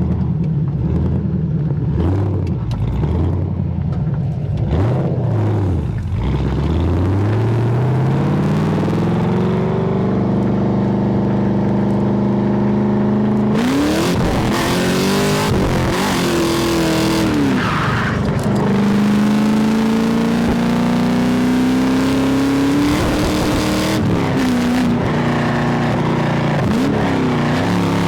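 Holden VY Commodore SS's 5.7-litre V8 heard from outside the car while driving. The engine note climbs as the car accelerates, then drops and climbs again several times through gear changes, over a hiss of road and wind noise.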